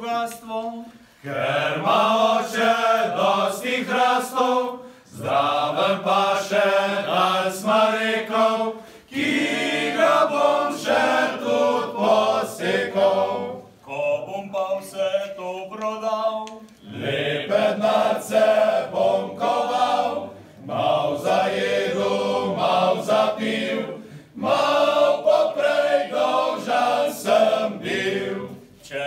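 Small men's vocal ensemble singing a cappella in several-part harmony, in phrases of about four seconds with short breaks between them.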